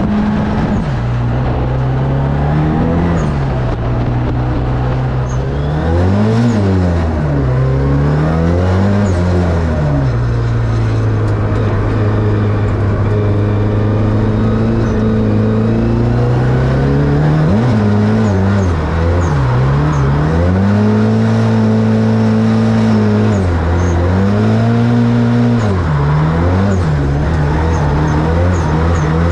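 Nissan S14 drift car's engine under hard throttle, revs rising and falling again and again as the throttle is worked, with longer steady stretches at high revs in between.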